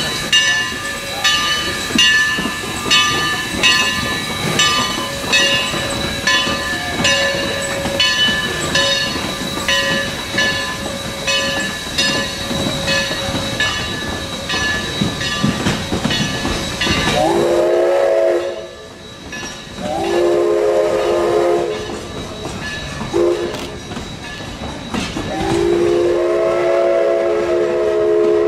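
Narrow-gauge 1920-built 4-6-0 steam locomotive and its train passing: a bell rings steadily, a little more than once a second, for about the first seventeen seconds. Then the locomotive's steam whistle blows a chord in the grade-crossing pattern, long, long, short, long, the last blast running on to the end.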